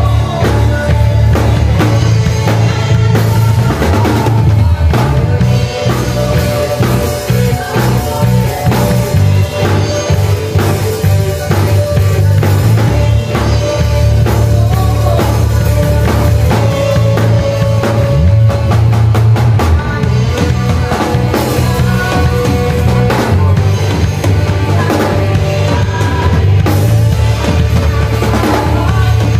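Drum kit and electric bass guitar playing a worship song, a steady drum beat with cymbal hits over held bass notes.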